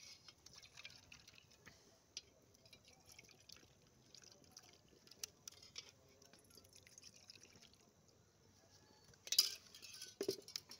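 Tea being poured from a pot into small steel tumblers: faint dribbling with light clinks, then a louder clatter of metal about nine seconds in.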